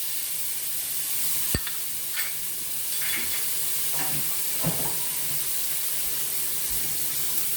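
Onion and garlic sizzling in melted butter in a cast iron skillet, a steady frying hiss. A sharp utensil knock on the pan about a second and a half in, and a few lighter clicks and scrapes after it.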